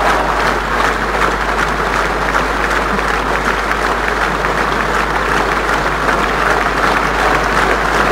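Large audience applauding steadily, many hands clapping at once in a dense, unbroken wash of applause.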